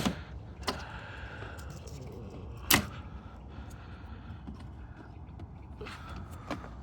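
A few sharp plastic clicks and knocks from trim pieces and a sensor connector being handled and unclipped, the loudest about three seconds in, over a low steady hum.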